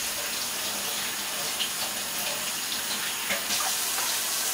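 Kitchen tap running: a steady, even rush of water.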